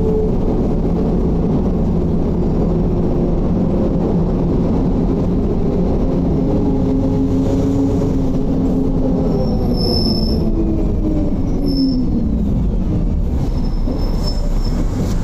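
Mercedes-Benz O-500UDA articulated bus's diesel engine running, its pitch falling steadily over several seconds as it slows. Short high-pitched squeals come in several times in the second half, typical of brakes squealing.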